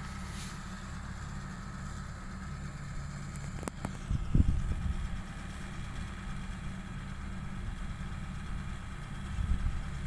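Compact rice combine harvester's engine running steadily at a distance as it works through the rice, a low rumble with a faint hum above it. A sharp click a few seconds in, and low thumps just after it and again near the end.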